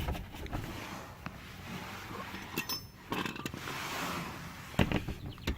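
Light metallic clinks and knocks of hand tools being handled, a torque wrench being picked up and tried on the oil drain plug, with one brief metallic ring a little before the middle.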